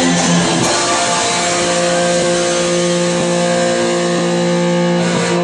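Heavily distorted electric guitar chord held ringing, moving to a new chord about a second in and sustaining it as the song's closing chord.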